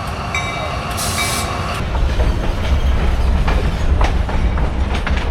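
Train running on the tracks nearby: a ringing tone repeats evenly near the start, a short hiss comes about a second in, then a heavy low rumble with rail clatter.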